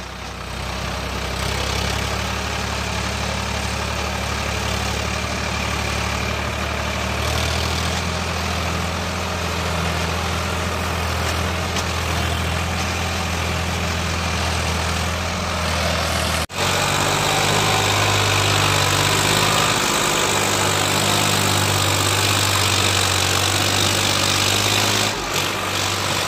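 Farmtrac 60 tractor's diesel engine running steadily as it pulls a fully loaded trolley along a dirt track. About sixteen seconds in the sound cuts abruptly, and the engine comes back louder and closer, with more rattle and tyre noise over it.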